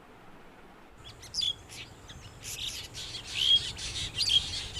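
Short chirps and whistled notes of a long-tailed shrike mimicking the calls of a black drongo, with the drongo itself calling too, starting about a second in.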